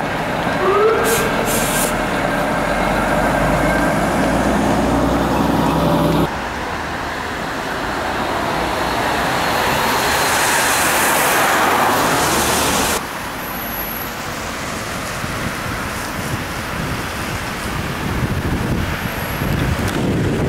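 Street noise dominated by a touring coach's engine as the coach drives through a roundabout, with a brief rising squeal about a second in. After two sudden cuts, steady street and traffic noise continues.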